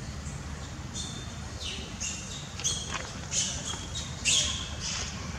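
Long-tailed macaques giving a string of short, high-pitched squeals, five or six in a row, the loudest about four seconds in.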